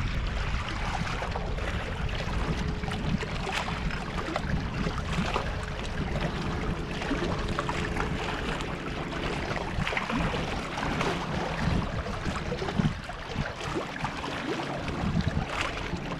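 Wind on the microphone and river water lapping against the shoreline rocks. A faint steady hum sits in the background from a couple of seconds in.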